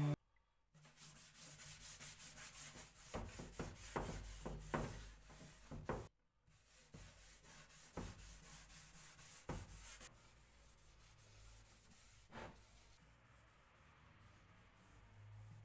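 A cloth rubbing wood finish into a wooden lid in repeated wiping strokes, faint, with a short break about six seconds in.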